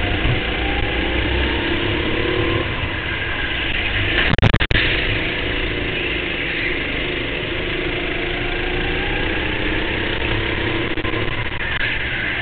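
Go-kart engines running hard during a race, the pitch rising and falling with throttle through the corners, over a low rumble. A brief loud knock comes about four seconds in.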